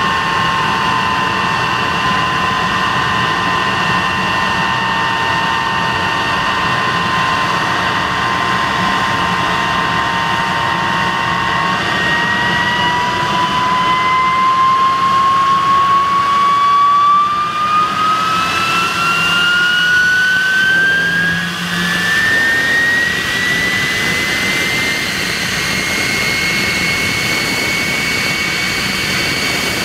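De Havilland Venom's Ghost turbojet running on the ground, a steady whine over a roar. About twelve seconds in, the whine starts to rise smoothly in pitch as the engine spools up to higher power, then holds at the higher pitch near the end.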